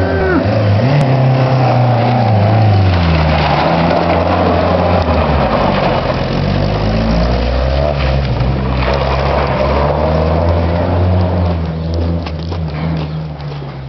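Small hatchback's engine revving hard, its pitch rising and falling as the car spins its wheels on a dusty dirt yard, over a hiss of tyres and thrown dirt. The engine fades near the end as the car moves away.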